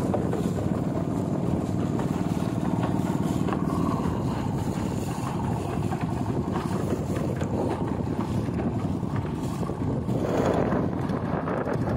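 Motor bangka's engine running steadily while the boat is underway, with wind on the microphone. A brief louder rush of noise comes near the end.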